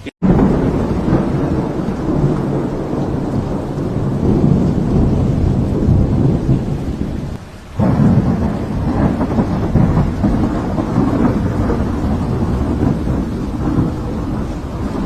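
Loud, continuous storm noise of rain with thunder. It dips briefly about halfway through, then comes back just as loud.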